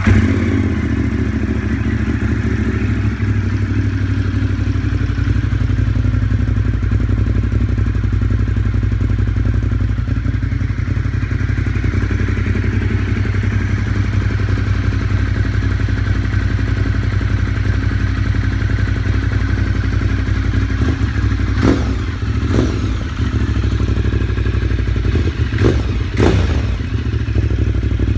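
Ducati Monster 1200 S L-twin idling steadily through a Termignoni carbon slip-on exhaust. A few brief knocks and clatter come in the last several seconds.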